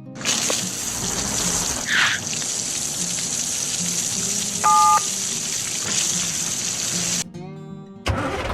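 Steady hiss of storm rain over soft background music, with a brief whoosh about two seconds in and a loud two-tone electronic beep for half a second near the middle; the rain cuts off shortly before the end, leaving the music.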